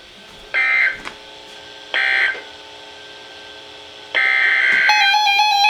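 Emergency Alert System digital data bursts over weather radio: two short, harsh warbling squawks about a second and a half apart, the end-of-message signal closing the spoken warning. About four seconds in a longer burst starts and runs into steady tones just before the end.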